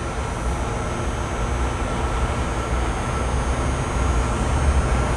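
Steady low machine rumble with a faint thin high whine above it, growing slightly louder.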